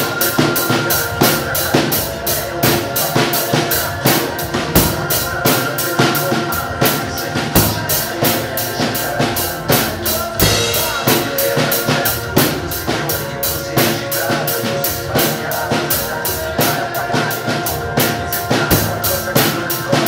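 Tamburo T5 drum kit played in a steady rock beat, bass drum, snare and cymbal strikes about four a second, over the song's instrumental backing track.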